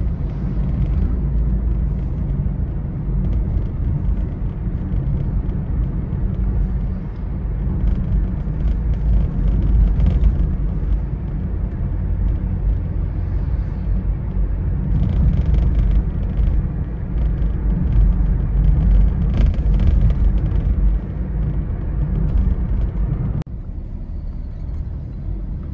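Low, steady road and engine rumble of a moving car heard from inside the cabin, dropping suddenly to a quieter level near the end.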